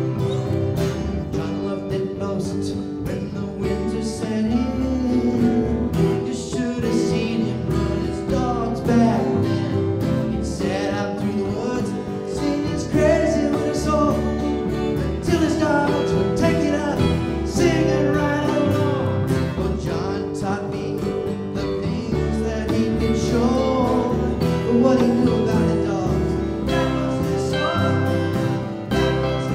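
Live folk-country band music: acoustic guitar, upright bass, drum kit and dobro, with a string section.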